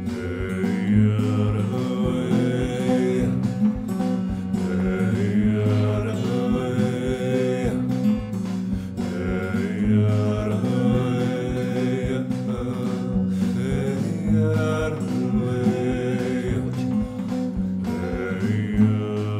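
Background music: plucked guitar and a chant-like voice over a steady drum beat.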